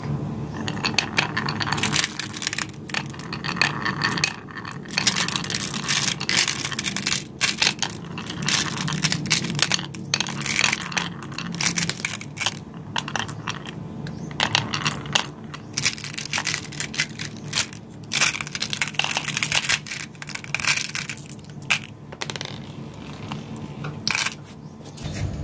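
Glass marbles rolling along the zigzag grooves of a wooden marble-run board and clacking against one another as they queue up in the channel: a dense, uneven stream of clicks over a steady rolling rumble.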